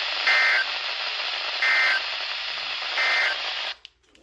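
Weather radio receiver playing heavy static hiss with three short bursts of two-tone EAS digital data, about 1.3 s apart: the end-of-message signal that closes the weekly test. The hiss cuts off suddenly near the end as the transmission drops.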